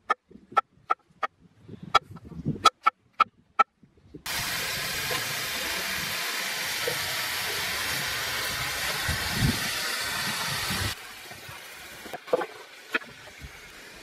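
Knife slicing mushrooms on a cutting board, a run of sharp knocks, then sliced mushrooms sizzling in a hot skillet with a loud, steady hiss that drops away suddenly near the end, where a few knocks come as a wooden spatula stirs the pan.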